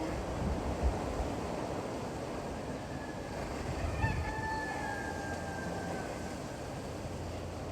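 Wind blowing across an open village, with a steady low rumble. About four seconds in, one long call from a distant bird, a single drawn-out note falling slightly in pitch over about two seconds.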